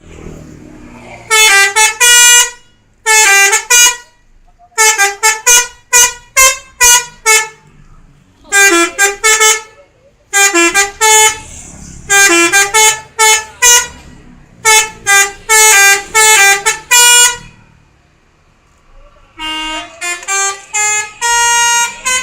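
Bus telolet horn, a set of electric air-horn trumpets, playing short melodic phrases of stepped notes. It comes in about seven loud bursts separated by brief pauses.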